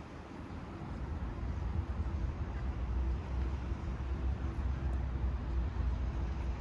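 Steady low engine rumble with a faint steady hum, outdoor city traffic noise.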